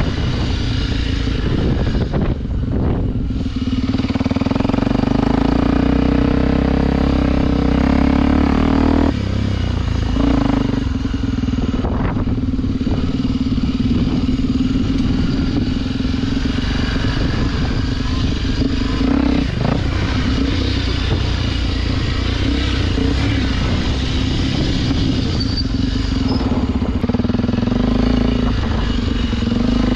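Honda XR Tornado's single-cylinder four-stroke engine running under steady throttle while the motorcycle rides a dirt trail. The throttle is briefly eased off several times and the engine note dips, then picks up again.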